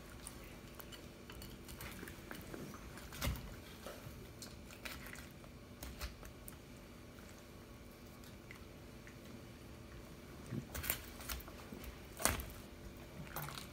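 Kitchen knife cutting through raw puffer fish on a plastic cutting board: quiet wet slicing and squishing, with a few sharp clicks, several of them near the end, over a faint steady hum.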